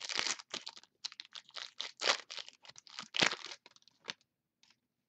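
A trading card pack's plastic wrapper crinkling and tearing as it is ripped open and the cards slid out: a rapid, irregular crackle that dies away about four seconds in.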